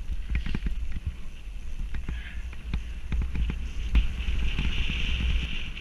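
Mountain bike riding over a rough dirt trail: wind rumbling on the camera's microphone, with frequent knocks and rattles from the bike jolting over bumps and a higher buzzing hiss near the end.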